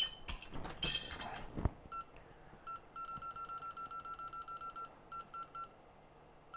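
A few light metallic clinks, then a run of short electronic beeps from soldering equipment on the bench: rapid, about six a second, for about two seconds, then a few spaced beeps.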